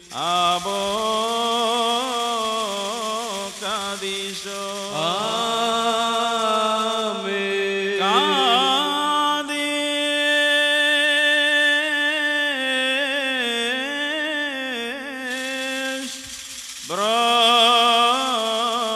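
Liturgical chant of the Syriac Orthodox Holy Qurbana: a voice sings a slow, melismatic melody in long held notes with wavering ornaments. It breaks off briefly near the end and comes back louder.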